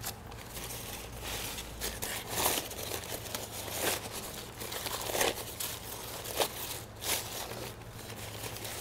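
Crinkling and rustling of a sheet laid on the floor under a motorcycle's engine as it is handled, coming in irregular bursts about every second or so. A faint steady low hum runs underneath.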